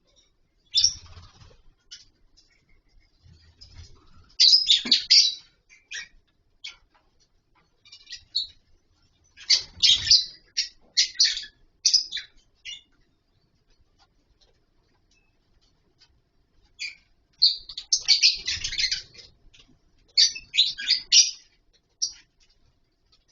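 Lovebirds in a colony chirping: flurries of rapid, high, sharp calls from several birds at once, separated by quiet gaps, with the busiest flurries about halfway through and again near the end.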